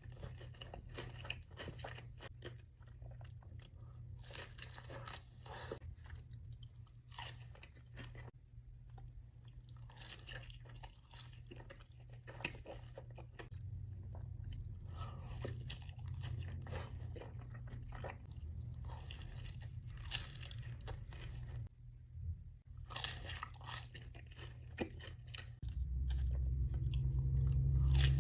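Close-miked biting and chewing of crunchy food, with irregular crackly crunches throughout. Under it runs a low steady hum that gets louder near the end.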